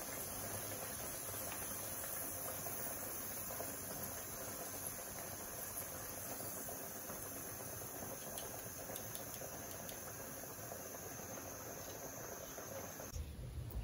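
Hot frying oil in a pan sizzling steadily with fine crackles, the fried potatoes just lifted out to drain above it. The sizzle stops abruptly near the end.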